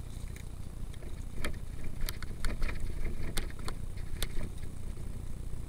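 Mountain bike riding down a leaf-covered dirt trail: a steady low rumble of the ride, with a run of sharp clacks and rattles as the bike jolts over bumps from about one and a half to four and a half seconds in.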